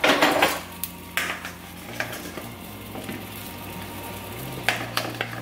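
Pot of water at a rolling boil, hissing and bubbling, with a few knocks and plops as quartered potatoes are spooned in from a mixing bowl.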